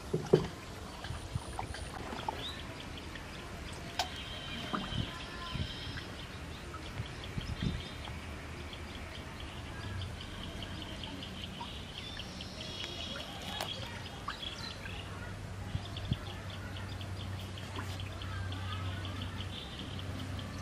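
Birds chirping repeatedly in the background. There are a few splashes and knocks in the first half as a cast net is hauled back hand over hand to a wooden boat, and a steady low hum comes in about halfway through.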